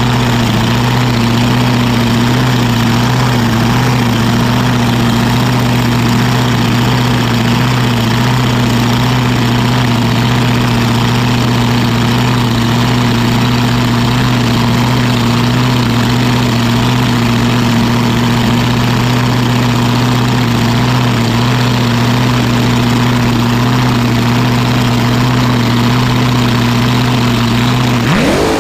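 Twin blown alcohol Chevy V8s (small-block and big-block) of a front-engine dragster idling steadily. Right at the end they rev up sharply.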